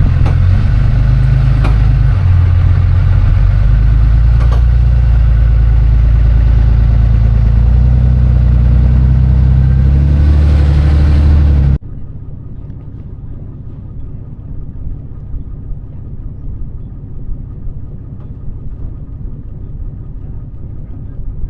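Truck on the road: a loud low rumble of engine and road noise whose pitch steps up and down. About twelve seconds in it cuts abruptly to a quieter, steady rumble.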